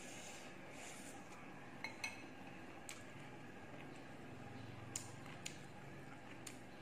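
Light clinks of a spoon and utensils against a glass salad bowl and china plates while eating: about six sharp, faint ticks spread over the seconds, over soft chewing.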